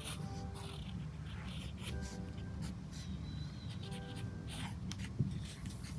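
Fineliner ink pen scratching over sketchbook paper in quick, short strokes, over soft background music with a few held notes and a steady low hum.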